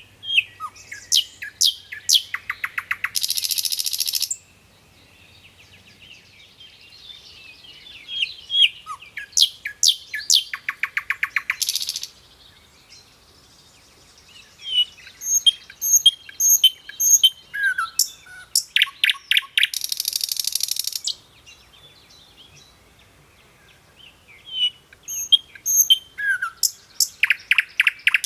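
Bird song: loud phrases of quick chirps, each running into a fast trill and a buzzy hiss, repeated four times, roughly every seven to eight seconds.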